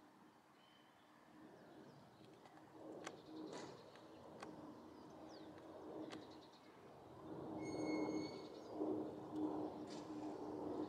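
Faint birdsong outdoors, with a low steady rumble that grows louder over the last few seconds.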